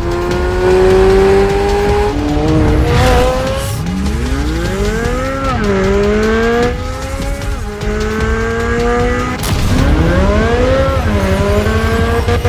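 The 2023 Corvette Z06's naturally aspirated 5.5-litre flat-plane-crank V8 (LT6) at full throttle on track, revving up and shifting gears. Its pitch climbs steeply and drops back several times, with the sharpest climbs in the middle and again near the end.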